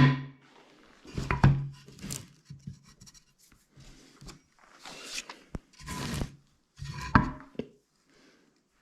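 Scrap wood boards being handled and worked: irregular knocks and scraping or rubbing, in short bursts with pauses, and a sharp knock about seven seconds in.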